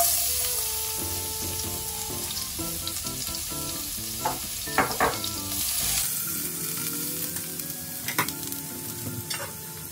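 Chopped garlic sizzling steadily in hot oil in a pan, with a few sharp clicks of the spatula against the pan as it is stirred. The sizzle drops to a softer level about six seconds in.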